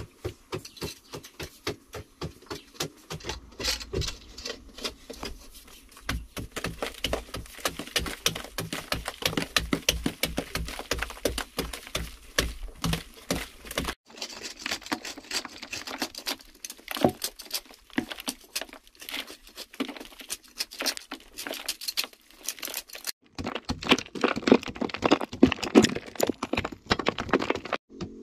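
Hand digging tools striking hard clay soil over and over in quick, steady blows, loosening and chipping the earth, with the character of the blows changing abruptly a few times.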